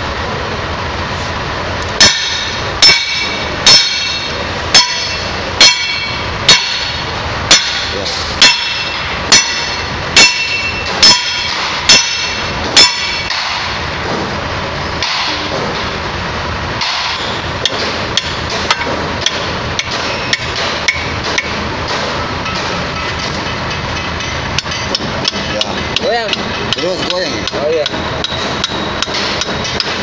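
Hammer blows on steel at the worn wear plate of a concrete pump's S-valve, as its fixing screws are knocked loose. About a dozen sharp, ringing metal strikes come roughly once a second, then give way to lighter, quicker taps and clicks in the second half, over a steady background noise.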